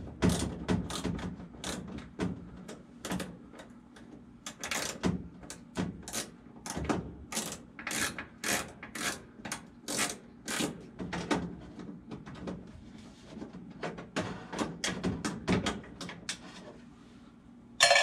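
Screws being backed out of a furnace's sheet-metal housing with a hand screwdriver: a string of quick metallic clicks and ticks, two or three a second, with a short pause about twelve seconds in. Near the end a loosened screw is dropped into an empty tin can with a sharp, ringing clink.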